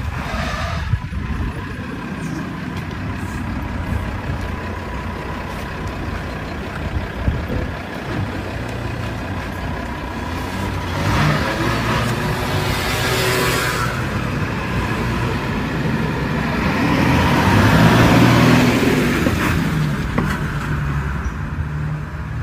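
A vehicle engine running in a street, a steady low hum that grows louder twice, about eleven seconds in and again about seventeen seconds in.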